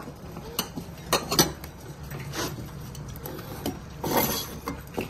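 Dishes and a spoon clinking and scraping as cat food is dished out. Several sharp clinks come in the first second and a half, followed by softer scrapes.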